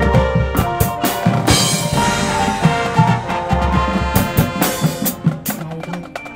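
High school marching band playing: sharp drum and percussion hits and bass drum over held wind and mallet notes, getting softer near the end.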